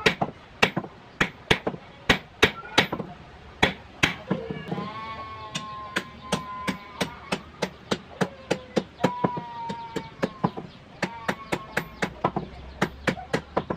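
Hand hammer forging a steel knife blade, a steady run of sharp blows about three a second. A long animal call sounds in the background from about a third of the way in until past the middle.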